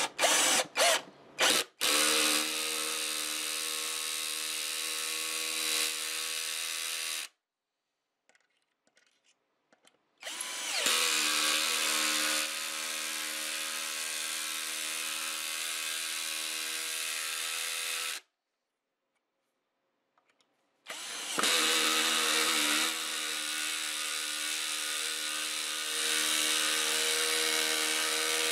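Electric drill running in three long, steady stretches with a few short trigger blips at the start, each stretch stopping abruptly: the neck being joined to the guitar body.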